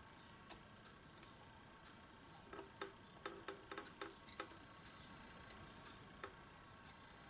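Digital multimeter's continuity buzzer beeping twice, a steady high tone of about a second each time, as the probes find continuity across a power MOSFET transistor: a sign that the transistor may be shorted. Before the beeps, light clicks and scratches of the probe tips on the circuit board.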